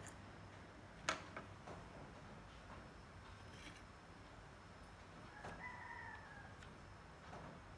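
Faint rooster crowing once, a single call of about a second that drops slightly in pitch at its end, about five and a half seconds in. A sharp click about a second in is the loudest sound, with a few faint ticks around it.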